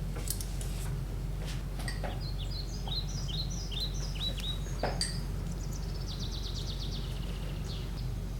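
Birds chirping: a string of short falling chirps, then a fast trill, over a steady low hum. A few light clicks sound, the sharpest about five seconds in.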